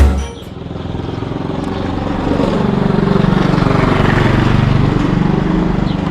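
A motor vehicle's engine running steadily, its pitch rising slightly about halfway through and then easing off.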